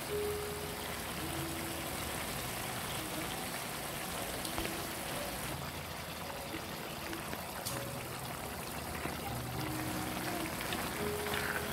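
Pork pieces sizzling steadily in hot rendered fat in a frying pan, with a wooden spatula scraping through the meat near the end.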